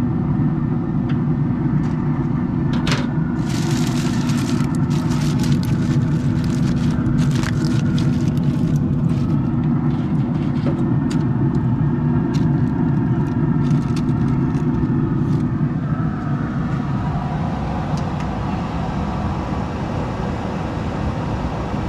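Steady low hum of a Traeger pellet grill's fan running, with scattered light clicks and rattles from about 3 s to 16 s as a temperature probe and its wire are handled over the grill grate and the foil pan.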